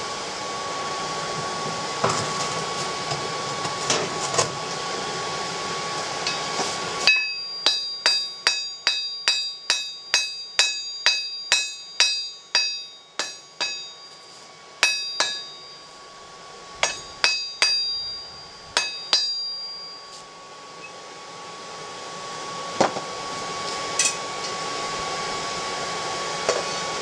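Hand hammer striking a red-hot steel bar on an anvil to straighten it: about twenty ringing blows, mostly about two a second, then a few spaced strikes. Before and after the hammering, a steady whir that fits the forge's air blower.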